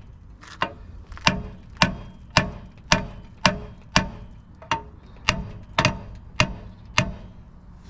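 Steady metallic tapping on the wheel's brake disc, about two sharp knocks a second, each with a short ringing tone: rust is being knocked off the disc where it rubs the ABS shield and squeaks.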